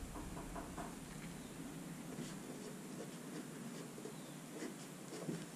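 Pen writing on paper: faint, short scratching strokes as an equation is written out.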